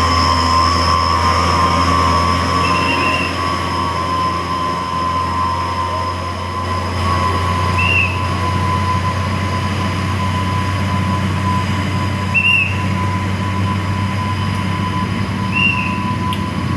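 Steady heavy-vehicle rumble with a constant high whine over it, broken by four short high chirps spaced a few seconds apart.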